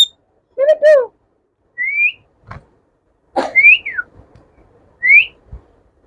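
Indian ringneck parakeet whistling: two short lower chattering notes about half a second in, then separate short rising whistles, one of them rising and then sliding back down.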